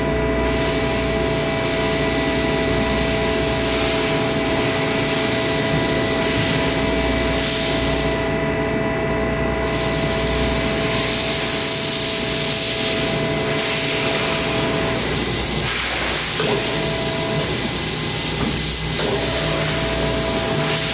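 Omax 60120 CNC waterjet cutting: a steady hiss of the high-pressure jet, with a steady whine of several tones under it. The high hiss dips for about a second around eight seconds in, and the whine breaks off for a few seconds past the middle before coming back.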